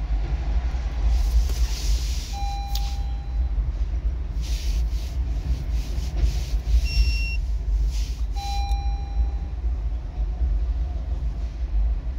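Electronic beeps over a steady low rumble: a long beep about two seconds in, a shorter, higher beep around seven seconds, and another long beep a little after eight seconds.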